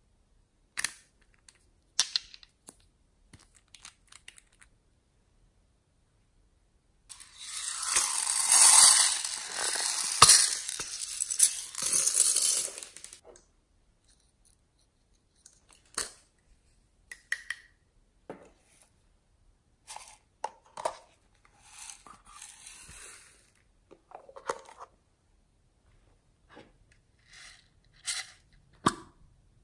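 Hands handling and opening small plastic containers and bottles: scattered clicks and taps. About a quarter of the way in comes a loud stretch of rasping noise lasting some six seconds.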